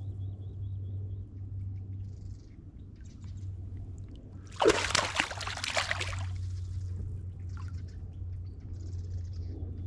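A hooked bass splashing at the surface beside a kayak: one loud burst of splashing that starts sharply about halfway through and lasts over a second. A low steady rumble runs underneath.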